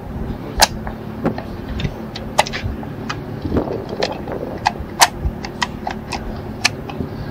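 Irregular sharp metallic clicks and knocks from handling an LMT MWS .308 rifle and its magazine, the loudest about half a second in. A low steady hum runs beneath.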